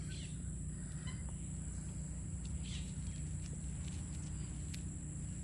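Quiet outdoor background: a steady low rumble with a few faint, distant bird calls.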